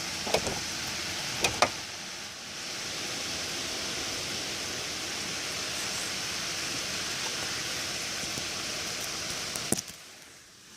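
Wind rushing steadily through trees, with a few sharp clicks in the first two seconds and one more shortly before it dies down near the end.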